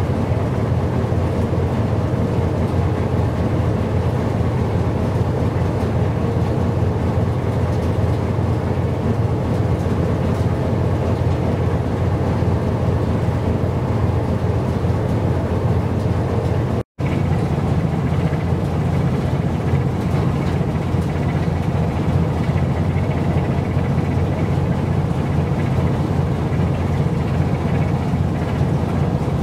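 Wind buffeting the microphone: a steady low rumble with a hiss above it. It drops out for a split second a little past halfway.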